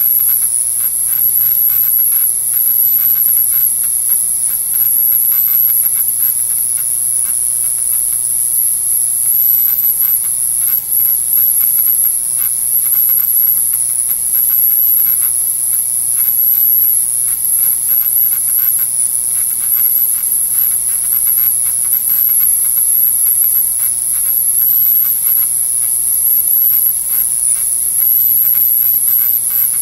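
Ultrasonic cleaner running: a steady, high-pitched whine that wavers slightly, over a faint low hum.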